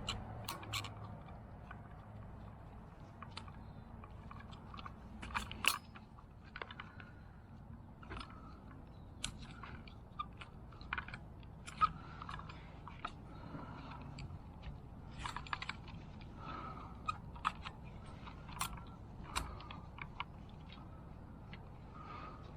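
Irregular small clicks, ticks and crackles of plastic and metal parts being handled and worked loose while a fuel pump assembly is taken apart by hand.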